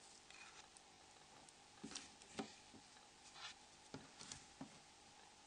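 Faint, irregular light clicks and taps from the small plastic parts of a Nokia E70's flip module being handled as the LCD is pushed out of it.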